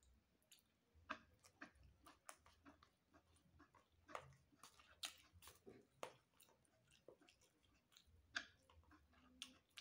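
Faint chewing and mouth noises of someone eating rice with their fingers, with irregular soft clicks and smacks every half second or so.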